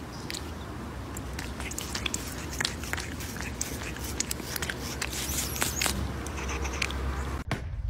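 A cat chewing and licking at its own front paw: a steady run of small wet clicks and smacks.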